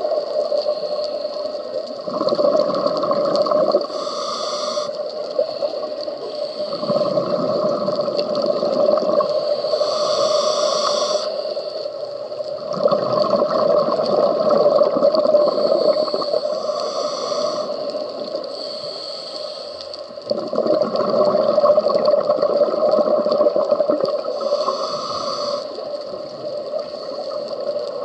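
Scuba diver breathing through a regulator underwater: a short hiss of inhalation, then a longer burble of exhaled bubbles, repeating about every six seconds over a steady hum.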